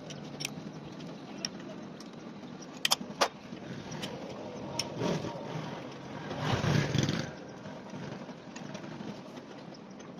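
Sharp metal clicks and clinks of hand tools on engine parts, the loudest two about three seconds in, over a steady workshop background; a short whooshing swell rises and falls a little past six seconds.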